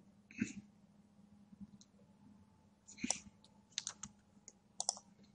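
Scattered computer keyboard and mouse clicks, a few at a time, over a faint steady hum.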